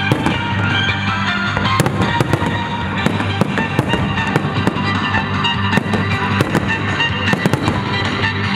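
Fireworks display: aerial shells bursting in irregular bangs, two or three a second, over loud music playing with the show.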